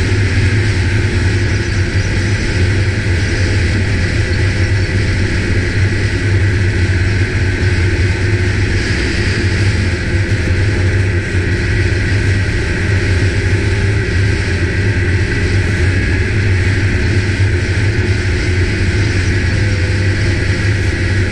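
Snowmobile engine and track running steadily at cruising speed, heard from the rider's seat, with a thin steady whine over the engine's drone.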